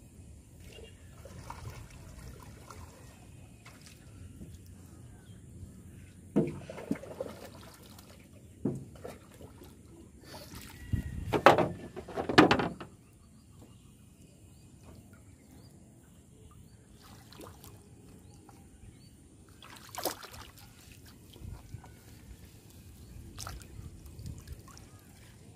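Water sloshing and trickling around a small wooden boat as it is pushed along with a wooden pole, with scattered splashes and knocks. The loudest cluster comes about eleven to thirteen seconds in, and there is another sharp one near twenty seconds.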